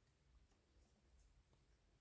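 Near silence: room tone with a few very faint ticks.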